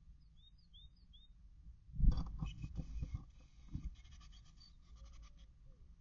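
Great tits in a wooden nest box: three short, high, falling chirps in the first second or so. Then, about two seconds in, a burst of scratching and rustling from claws on the wood and the nest material, with faint high calls through it, fading after about two seconds.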